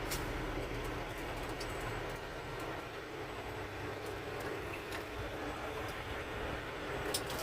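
Semi truck's diesel engine running steadily, a low rumble with an even background hiss and a few faint clicks.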